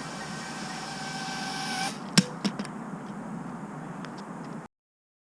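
Small FPV quadcopter's motors whining steadily over hiss, stopping about two seconds in, followed by one sharp knock and a couple of lighter clicks as it comes down; the sound then cuts off suddenly near the end.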